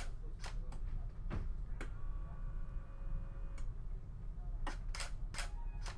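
Sharp clicks at uneven spacing from the camera shutter and the shutter-release turntable as it turns, stops and triggers each frame, bunched together near the end. A faint steady whine of the turntable motor in the middle, over a low hum.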